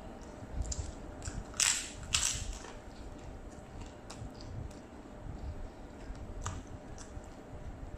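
Crisp kerupuk cracker crunching: two sharp crackles close together about a second and a half in, then fainter clicks and chewing of eating with the fingers.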